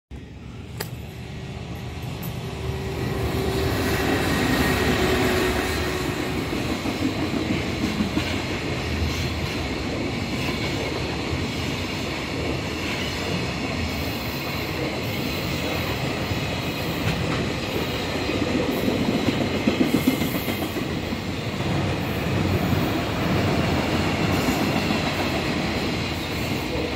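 Freight train of Koki 100-series container wagons behind a JR Freight EF210 electric locomotive, passing close by on the rails. It grows louder over the first few seconds as it arrives, then holds as steady wheel-and-rail noise, with a few sharp knocks about two-thirds of the way through.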